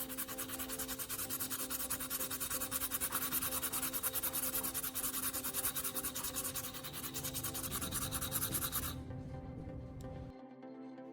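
Carbon rod being rubbed back and forth on sandpaper, a fast run of scratchy sanding strokes that stops about nine seconds in.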